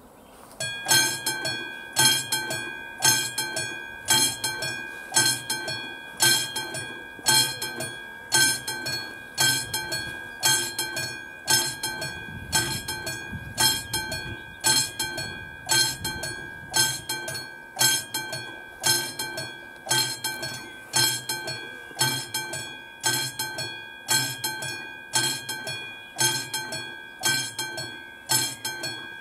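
Classic mechanical bell of an AŽD 71 level-crossing signal starts ringing about a second in, struck over and over at an even rate, each stroke ringing on with a clear metallic tone: the crossing warning for an approaching train.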